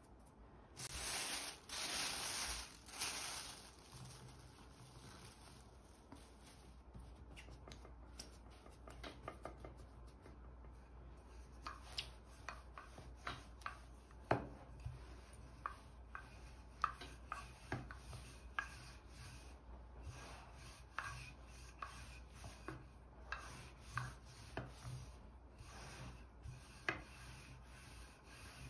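A plastic bag rustling for a couple of seconds near the start, then a wooden rolling pin rolling out yeast dough on a floured glass worktop: soft rubbing strokes with frequent light knocks.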